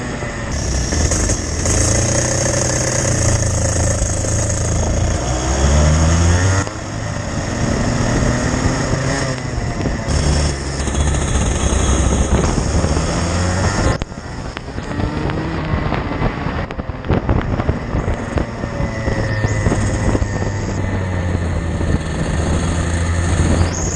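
Racing kart engine heard onboard, revving up and down as it accelerates and lifts through corners, its pitch rising and falling again and again, with short drops at lift-offs.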